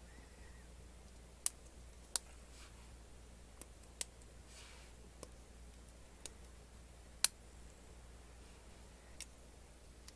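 Hard plastic LEGO Technic parts clicking as they are handled and fitted together into an open frame. About eight sharp, separate clicks come at irregular intervals, the loudest about seven seconds in, with a faint rustle of fingers on plastic.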